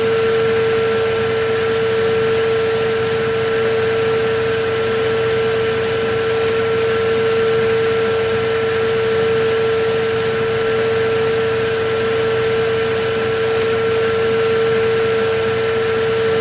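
Vacuum cleaner running steadily: a constant rushing noise with a steady motor whine, never changing in pitch or loudness.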